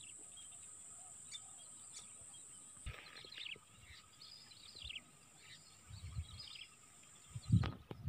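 Distant whistling ducks (belibis) in flight giving several thin, high, falling whistles over faint background noise. A low thump near the end is the loudest sound.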